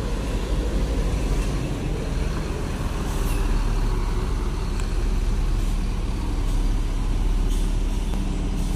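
Mercedes-Benz 1626 coach's diesel engine running as the bus pulls away slowly and turns, a steady low rumble, with a few short air hisses from its air brakes along the way.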